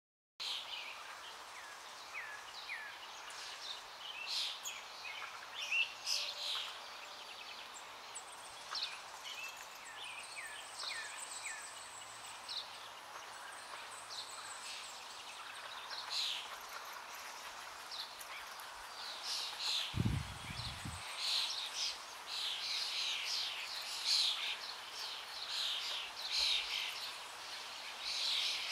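Many small birds chirping and calling in quick short notes, growing busier near the end, over a steady outdoor hiss. One brief low thump about two-thirds of the way through.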